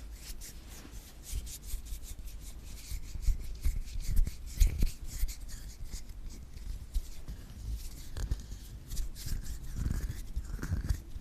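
Close-miked ASMR scratching and rubbing on an object: quick, crackly scratch strokes with soft low thumps, busiest a few seconds in.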